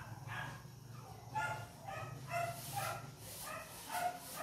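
A dog making short, high, repeated calls, two or three a second. A low hum runs underneath and stops about three seconds in.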